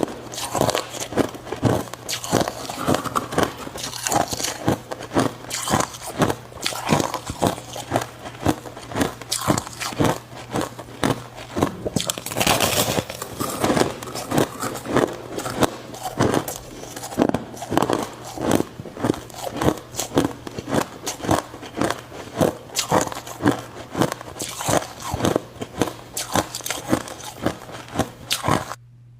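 Ice being bitten and chewed close to the microphone: a fast, unbroken run of sharp crunches, several a second, over a steady low hum. The crunching stops abruptly just before the end.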